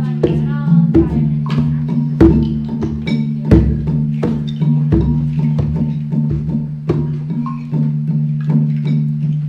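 Classroom percussion struck in quick, irregular wooden knocks, a few a second, over a steady low drone.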